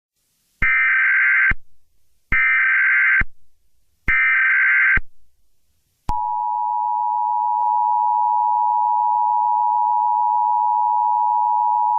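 Emergency Alert System header: three short bursts of SAME data tones, each just under a second with about a second's gap between them, then the steady two-tone EAS attention signal starting about six seconds in. It marks the start of an emergency alert broadcast.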